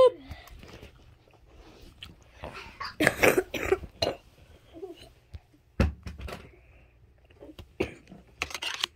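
Scattered rustles, knocks and handling noise from a phone being moved about, with a cluster of louder scuffs about three seconds in and a single thump about six seconds in.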